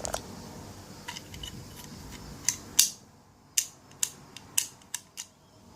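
Vintage pin-tumbler padlock worked with its newly cut key: a run of sharp metallic clicks from the key turning in the lock and the shackle moving, about seven clicks, mostly in the second half.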